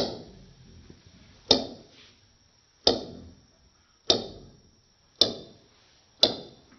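A small ball bouncing on a desktop: six sharp impacts, each dying away quickly, coming closer together as the bounces lose height.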